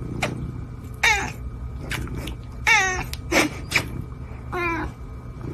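A ginger domestic cat meowing about five times in short, wavering cries that fall in pitch.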